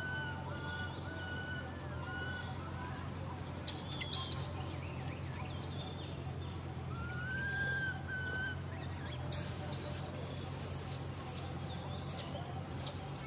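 Faint, short, high-pitched chirping calls over a steady low hum, with a few brief rustles or clicks about four seconds in and again in the second half.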